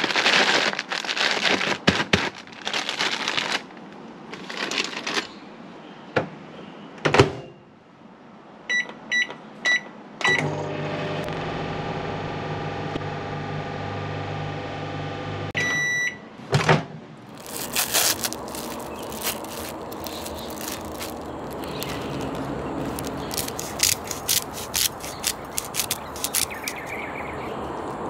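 Frozen fries bag crinkling as it goes into an LG microwave oven, then a thump. The keypad beeps four times and the oven runs with a steady hum for about five seconds, ending on one longer beep. After a thump, plastic crinkling and scattered clicks fill the rest.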